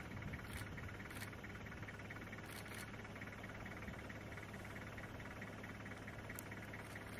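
Safari vehicle engine idling with a steady low hum, with a few faint clicks.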